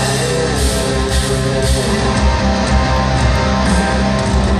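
Live symphonic rock band playing loud, with electric guitars over heavy bass, heard through an arena's PA from among the crowd.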